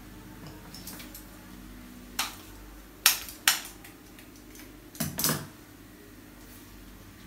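Florist's scissors snipping flower stems and leaves: about six sharp clicks, one near two seconds in, a close pair around three seconds, and a quick cluster of three near five seconds.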